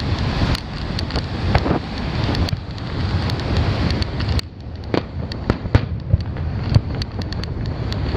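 Fireworks shells bursting with a string of sharp bangs and crackles, the loudest reports in the second half, over a steady rush of wind on the microphone and surf.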